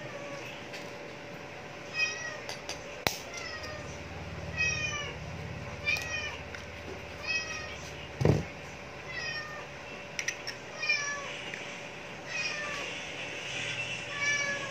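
Domestic cat meowing over and over: short, falling meows about one a second, starting about two seconds in. A single sharp knock comes about eight seconds in.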